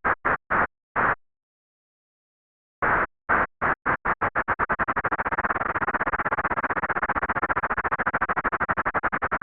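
Pulsing bursts of white-noise hiss that track a sub-audible 'ocean wave' sine waveform from a SOX synth command. Fast pulses slow and stop for about a second and a half, then resume slowly and quicken until they almost blur into a continuous rushing hiss, breaking back into separate pulses near the end.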